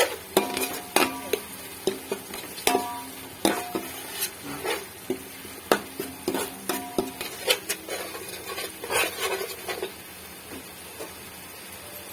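A spoon stirring frying masala in a cooking pot, knocking against the pot again and again with a brief ring after each knock, over a light sizzle. The knocking stops about ten seconds in, leaving only the faint sizzle.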